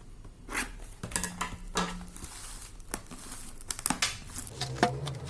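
Packaging of a 3-inch aerial display shell being torn and crinkled open by hand, in irregular crackling strokes.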